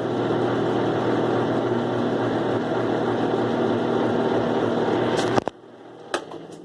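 Kenmore 70 Series direct-drive washing machine running with a steady mechanical hum, the strange noise that had been there now gone. About five seconds in it stops abruptly with a click, and another click follows about a second later.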